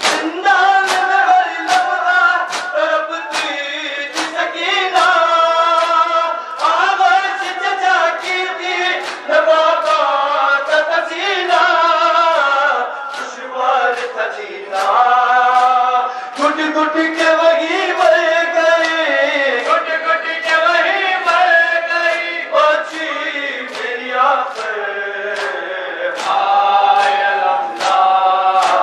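An Urdu nauha (mourning lament) sung by a male reciter, with a crowd of mourners chanting along in chorus. Open-hand slaps on bare chests (matam) keep a steady beat about twice a second.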